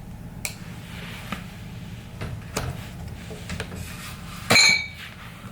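Light clicks and knocks of a side plate being worked off a Boosted Rev electric scooter's wheel hub, then a louder scraping clink about four and a half seconds in as the plate comes free.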